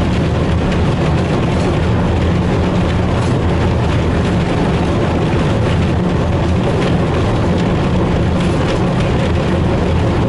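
British Rail Class 03 shunter No. 03197's eight-cylinder Gardner diesel engine running steadily as the locomotive travels along the line, a constant low drone heard close to the exhaust stack.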